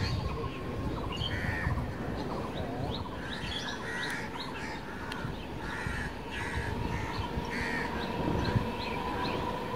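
Crows cawing repeatedly, over a low background rumble. A thin steady hum grows stronger near the end as an EMU local train approaches.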